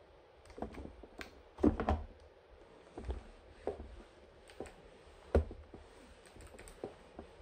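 Scattered knocks and light clicks from a steam-generator iron being lifted off its plastic base and handled over a shirt on an ironing board. The loudest knocks come a little under two seconds in and a little over five seconds in.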